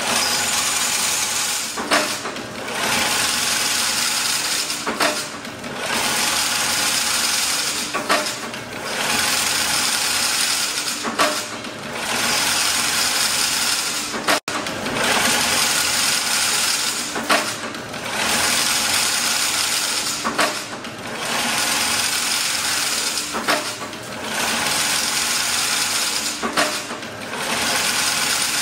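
Automatic chain-link fence weaving machine running: dense mechanical clatter in a cycle that repeats about every three seconds, each cycle opening with a short lull and a sharp clack. The sound cuts out for an instant about halfway through.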